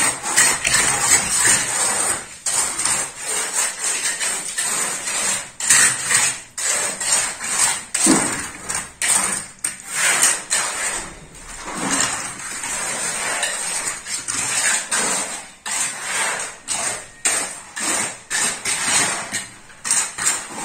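Steel trowel scraping and knocking through wet gravel concrete as it is spread over a table form: a long run of irregular scrapes and knocks.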